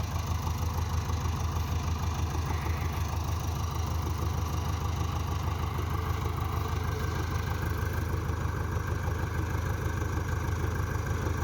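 A heavy machine's diesel engine running steadily at low revs, with a fast, even throb.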